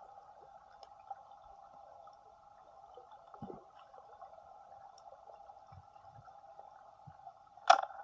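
Underwater ambience picked up by a snorkeler's camera: a steady muffled hum with faint crackles, a dull thump about three and a half seconds in, and a sharp knock near the end, the loudest sound.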